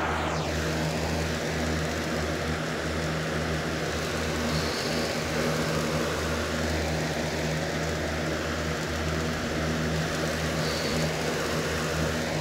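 Box fan running steadily close to the microphone: a constant rush of air over a low, even hum.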